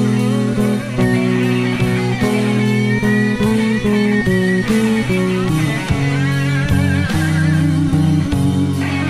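Electric bass guitar playing a walking blues bass line along with a live blues-rock band recording that has had its own bass removed. Over drums, the electric guitar plays lead notes that are bent and shaken with vibrato.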